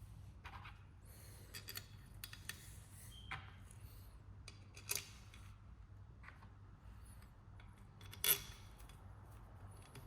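Scattered light clicks and clinks of small metal parts and tools being handled, with a sharper clink about eight seconds in.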